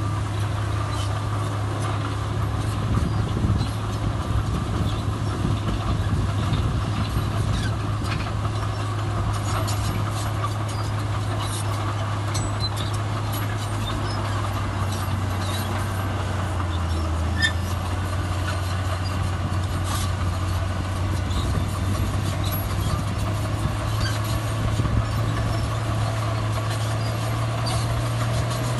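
Heavy diesel engine of earthmoving machinery running steadily under load, with scattered light clanks and rattles. Its drone drops slightly in pitch a little past halfway and climbs again near the end.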